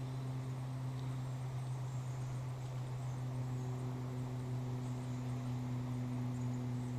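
A steady low hum with a faint higher overtone, holding even throughout, over light background hiss.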